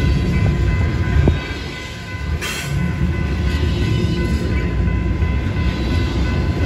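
Double-stack intermodal well cars rolling past at track speed: a steady low rumble with wheel clatter, briefly quieter about two seconds in. A grade-crossing bell keeps ringing through it, since the gates are still down.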